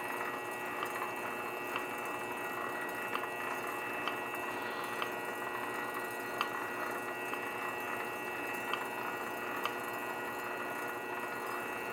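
Grizzly G0768 benchtop lathe running steadily: a constant motor hum and whine with several steady tones, and a faint tick about once a second.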